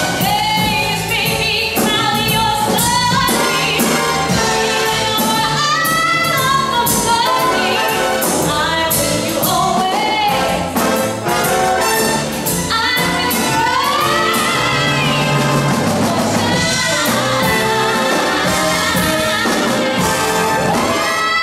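A female vocalist singing into a microphone over a full symphony orchestra, strings and brass playing behind her.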